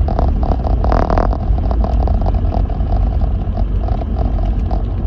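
Lexus GX470 driving on a snow-covered road: a steady low rumble of the moving vehicle, with scattered short clicks and a louder noisy burst about a second in.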